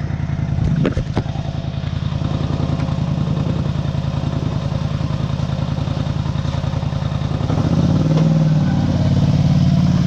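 ATV engine idling with an even low throb, growing louder and fuller near the end as the ATV reverses out of an enclosed trailer and passes close by. A few light clicks and knocks come right at the start.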